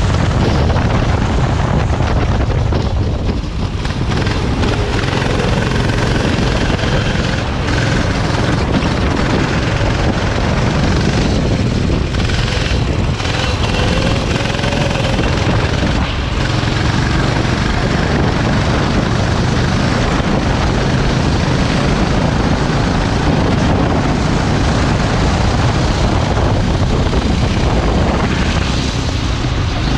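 Go-kart engine running at speed, its pitch rising and falling, under heavy wind rush on the microphone.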